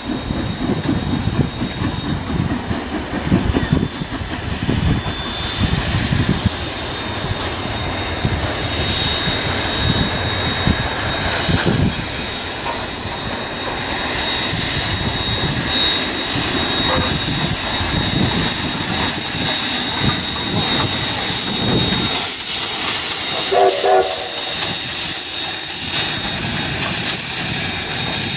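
NZR Ja class 4-8-2 steam locomotive working up a grade. Its exhaust beats are rhythmic and separate at first, then about halfway through they give way to a louder, steady rush of steam and running noise as it comes close.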